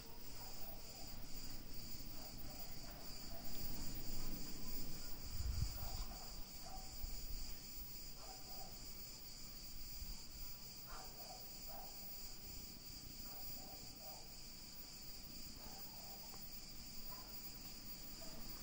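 Insects chirping in a steady high-pitched chorus with a rapid pulsing rhythm, and a low thump about five seconds in.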